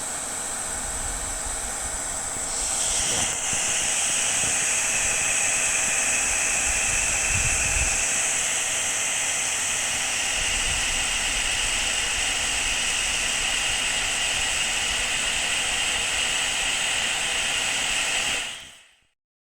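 Handy Heater Turbo 800 plug-in fan heater running, a steady whirring hiss of its fan with a thin whine in it. It gets louder about two and a half seconds in, then stops shortly before the end.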